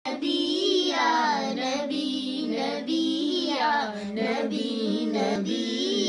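A young girl singing a naat solo, in phrases of long held, wavering notes.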